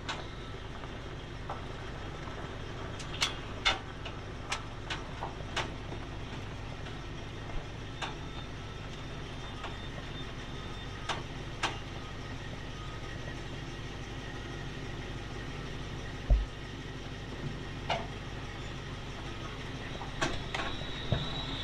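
1979 International Harvester Scout II driving slowly, heard from inside the cab: a steady low engine hum with scattered light clicks and rattles, and one low thump about sixteen seconds in.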